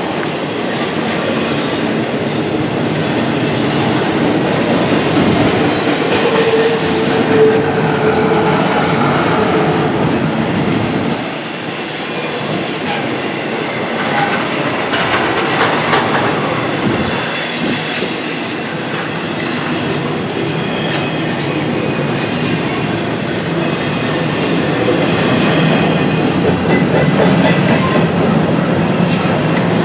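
Norfolk Southern train cars rolling past, their wheels clattering steadily over the rails.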